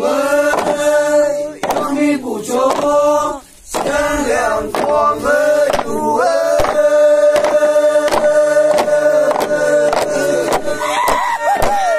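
A group of men chanting in unison, holding one long note for several seconds in the middle, over a steady beat of wooden sticks knocking on a bamboo log, about three knocks a second.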